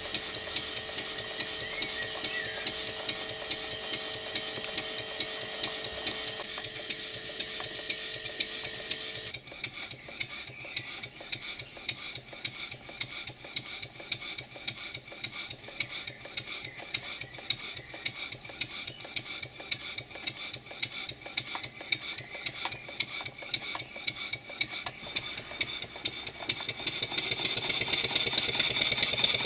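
Stuart "James Coombes" model table engine running on compressed air, its exhaust beating in a fast, even rhythm. The beats grow louder near the end.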